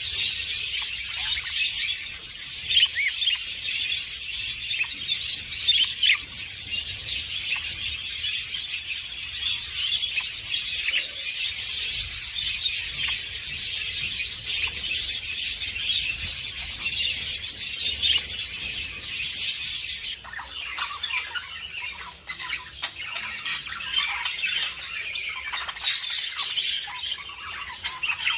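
A flock of budgerigars chattering with dense, continuous chirps and warbles; about two-thirds of the way through, lower, harsher squawks join in. This kind of flock chatter is used to stimulate budgies to breed.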